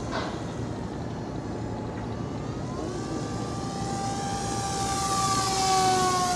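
Volantex Firestar Pro mini electric RC plane's motor and propeller whining under power. The whine starts about three seconds in, grows louder as the plane comes close in a low pass, and dips slightly in pitch as it goes by.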